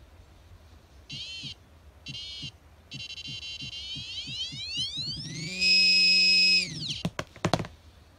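XP MI-4 metal-detecting pinpointer sounding its target alert as a coin is brought toward its tip. Two short beeps come first, then a continuous electronic tone that climbs in pitch and holds as a loud steady tone a little after halfway, then falls away. A few clicks follow near the end.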